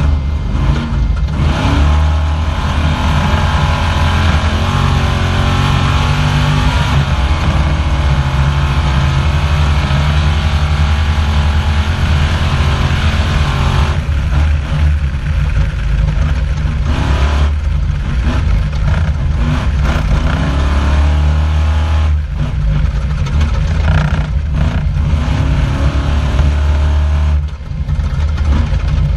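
Off-road race car's engine heard from inside the car, running hard, its pitch rising and falling again and again as the throttle comes and goes, over a constant noisy rush. Near the end it briefly drops off before picking up again.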